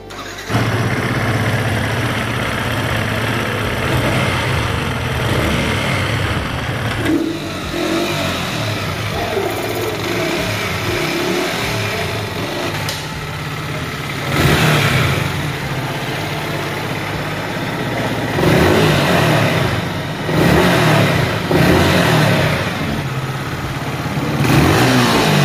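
Yamaha R15M's 155 cc single-cylinder engine starting about half a second in and idling, then revved with several throttle blips in the second half. After a tappet adjustment and service it runs smoothly, with a sound called very nice.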